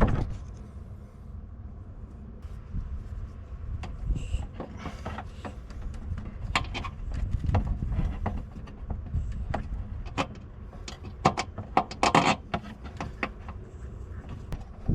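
Wind rumbling on the microphone, with a run of light clicks and knocks that come thickest between about six and thirteen seconds in.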